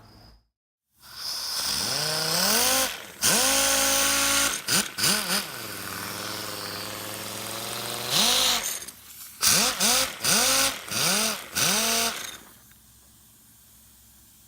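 Dynabrade pneumatic dual-action sander test-run in a series of short trigger bursts after its motor was cleaned and soaked in oil, its whine rising in pitch each time it spins up, over a hiss of air. It runs, the sign that the seized sander has been brought back to life; it stops shortly before the end.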